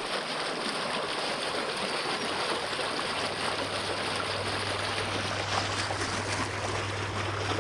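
Water rushing steadily through a pond's overflow tube that has just been unplugged of organic matter, the drain now running freely. A low steady hum comes in about three seconds in.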